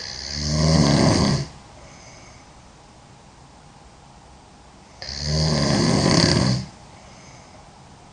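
A girl snoring: two loud, rattling snores about five seconds apart, each lasting about a second and a half.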